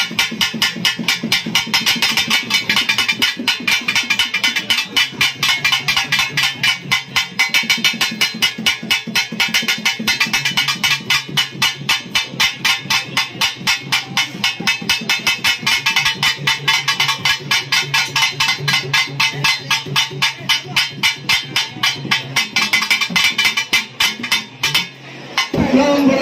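Temple festival drumming: fast, even beats played without pause, with a low steady tone beneath much of it. The beating breaks off briefly near the end.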